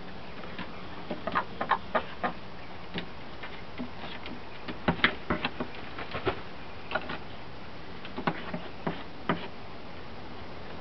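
Irregular sharp clicks and taps in short clusters from a cat and hens eating dry food out of a bowl on a wooden deck.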